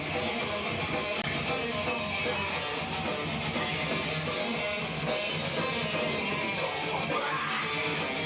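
Heavy rock music with strummed electric guitars over bass and drums, steady and dense.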